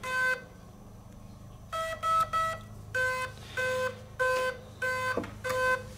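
The combat robot's electronics beeping once its battery is plugged in. There is a single beep, then three quick higher beeps about two seconds in, then an even, repeating beep about every two-thirds of a second from three seconds in.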